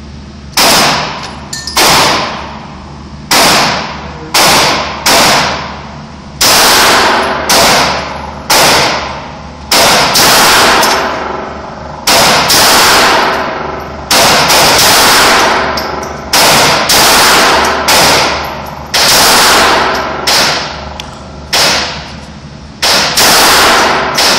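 Gunshots at an indoor shooting range: over twenty loud shots at irregular spacing, about one a second, each followed by a short echoing decay off the range's concrete walls.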